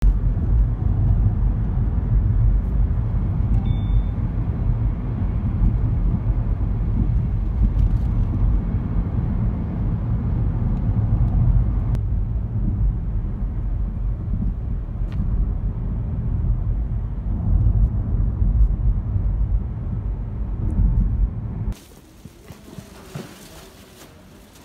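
Steady low rumble of a car, heard from inside the cabin. Near the end it cuts off suddenly to a much quieter background.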